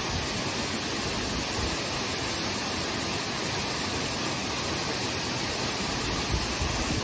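Waterfall pouring down a rock face: a steady, even rush of falling water.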